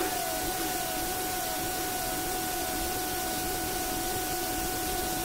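DJ mix fading out on its effects: a steady hiss and a held tone, with a short falling-pitch sound repeating about twice a second and growing fainter, like an echo tail.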